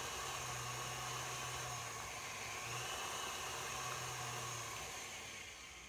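Tilt-head stand mixer running, its motor giving a steady hum and whine as it beats a cream cheese filling in the steel bowl; the hum drops out and the motor winds down near the end.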